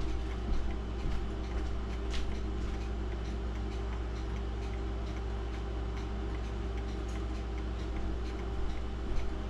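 Pendulum clocks ticking steadily, with a steady low hum underneath.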